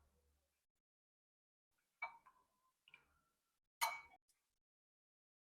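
Near silence broken by three light clinks of a metal utensil against a bowl or pot as soup is served, about two, three and four seconds in; the last is the loudest and rings briefly.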